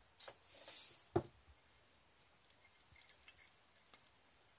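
A few faint, small metallic clicks of valve plungers and springs being handled against a metal automatic-transmission valve body; the sharpest click comes about a second in, with lighter ticks later.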